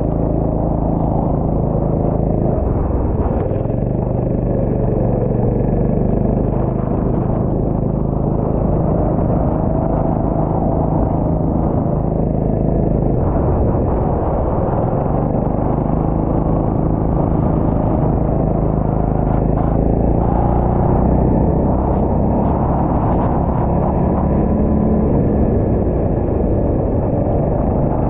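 Go-kart engine running close behind the seat while the kart laps a track, its pitch rising and falling with the throttle through the corners.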